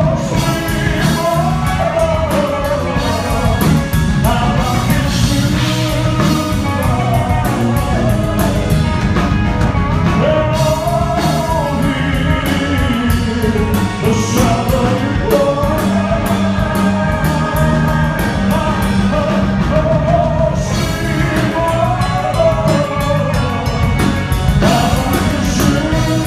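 Live rock band playing a ballad: drums, bass and guitars, with a wavering lead melody line on top.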